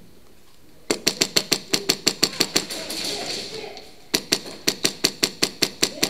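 Airsoft rifle firing full-auto in two rapid bursts of about eight shots a second. The first burst starts about a second in, and the second about four seconds in.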